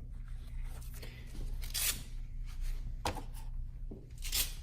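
Hands working on shifter parts: scattered light clicks and two short scraping rustles, about two and a half seconds apart, over a low steady hum.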